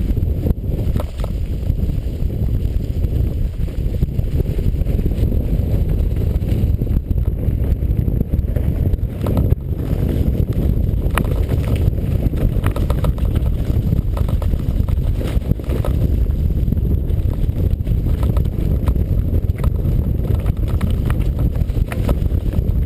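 Wind buffeting an action camera's microphone as a steady low rumble, with frequent small knocks and rattles from moving fast over rough ground on a downhill run.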